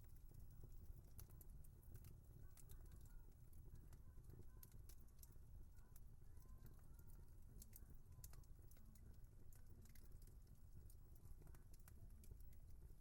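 Faint crackling of a wood fire: irregular sharp pops and snaps, several close together at times, over a steady low background noise.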